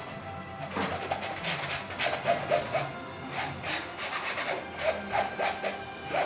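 A painting tool scraping across a canvas in short, irregular strokes, about a dozen over a few seconds.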